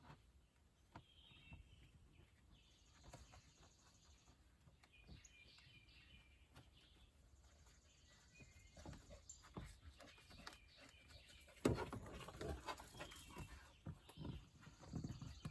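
Quiet handling sounds: a plastic spreader scraping and clicking against a plastic car door panel as the insert material is forced in behind a tight-fitting armrest. The clicks and scrapes come thicker and louder in the last few seconds.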